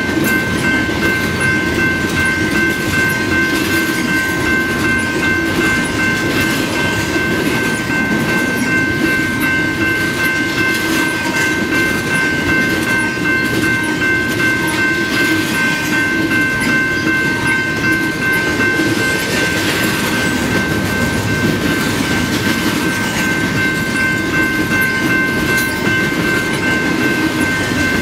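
Double-stack container freight train rolling steadily past: a continuous rumble and clatter of steel wheels on rail. Several steady high ringing tones hold over it throughout.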